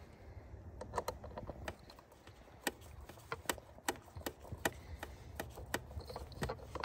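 Hand screwdriver with a T15 Torx bit working a screw out of a mass air flow sensor housing: a series of light, sharp clicks, two or three a second, starting about a second in.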